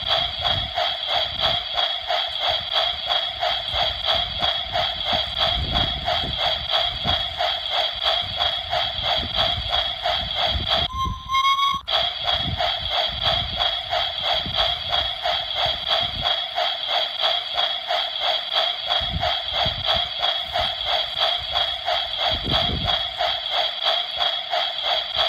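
Model steam locomotive sound running on a 16mm-scale garden railway: a steady, rhythmic chuffing with a fixed tone in it and a low rumble of wheels beneath. About eleven seconds in, the chuffing drops out for a short whistle that rises slightly in pitch.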